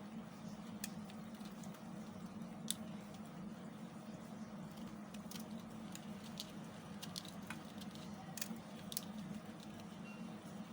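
Knife carving into a bar of soap, giving irregular crisp clicks and crackles over a steady low hum.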